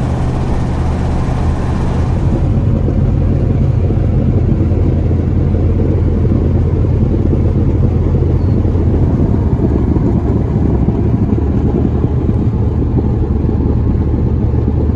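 Steady low rumble of engine and tyre noise heard inside a car cabin while driving along a road.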